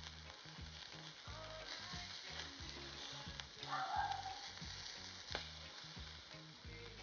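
Food sizzling steadily as it cooks over heat, fat beginning to render out of it. There is a sharp click a little after five seconds in, over soft background music with a steady low beat.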